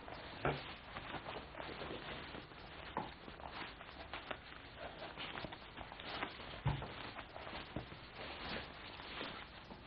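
Quiet handling noises: a padded jacket rustling and a large picture book being moved and its pages handled, with scattered light clicks. Two soft thumps stand out, one about half a second in and one about two-thirds of the way through.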